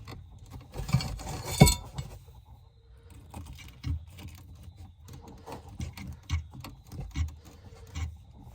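Clicks, taps and light rattles of hands working small metal and plastic parts while fitting the wires into a 30-amp RV shore power plug, with one sharper knock about a second and a half in.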